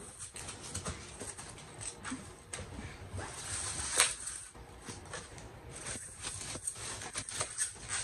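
Packing peanuts rustling and clicking as a hand rummages through them in a cardboard box. The noise is irregular, with a sharper crackle about four seconds in.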